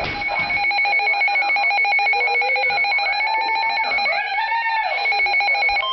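Weather radio receiver's alert alarm: a shrill electronic beep pulsing rapidly and evenly, sounding for a tornado warning.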